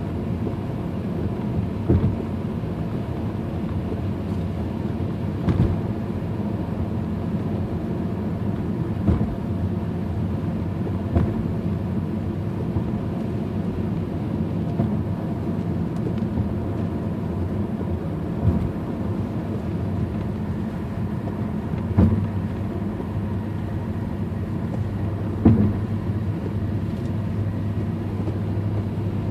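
Steady low rumble of a car driving on a wet road, heard from inside the cabin, with a short knock about every three and a half seconds from the windshield wipers sweeping.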